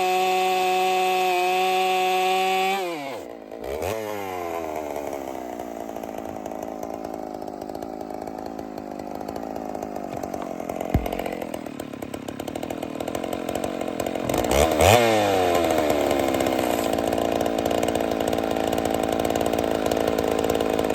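Two-stroke chainsaw held at a steady high pitch, then dropping and climbing again about three seconds in, before settling into a lower, rougher note while cutting wood. About fifteen seconds in it briefly comes off the throttle and back on, then cuts again.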